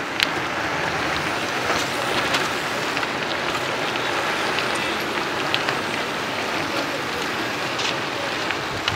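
A large pack of mountain bikes rolling past, knobby tyres crunching on gravel: a steady hiss dotted with small clicks.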